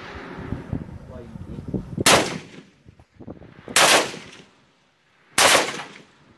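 Type-56 assault rifle (a Chinese AK-47 pattern in 7.62×39 mm) fired as three single shots, about one and a half seconds apart. Each shot is a sharp crack with a short echo trailing off.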